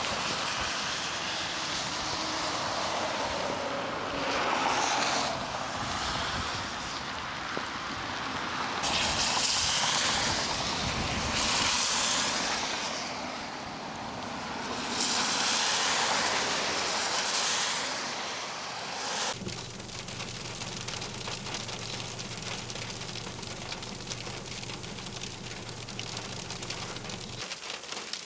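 Vehicles passing on a wet, icy highway in freezing rain: tyre hiss that swells and fades several times. Roughly two-thirds in it cuts to a steadier fine patter of freezing rain with a low steady hum.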